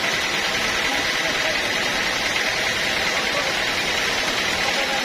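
A machine running steadily, with a constant high whine over an even noise.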